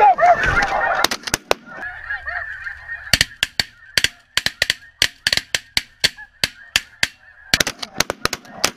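Snow goose calls, loud for the first second, then a rapid string of shotgun shots as several hunters fire together: many sharp cracks in quick succession, with a short lull in the middle, while the goose calling goes on faintly underneath.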